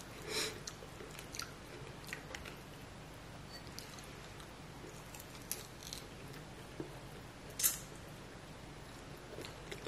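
A person eating a chicken wing with their hands: quiet, scattered mouth clicks and smacks of chewing and sucking the meat, with one louder click about seven and a half seconds in.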